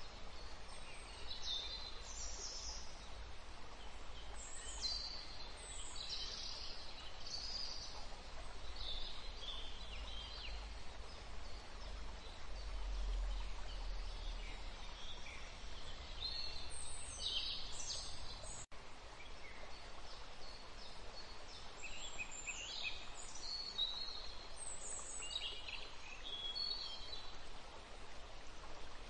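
Small birds chirping on and off in short, high, falling calls over steady background noise with a low rumble.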